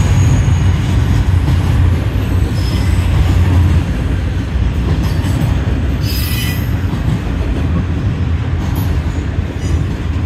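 Double-stack intermodal freight train's container well cars rolling past with a steady low rumble of wheels on rail. A brief high-pitched wheel squeal comes about six seconds in.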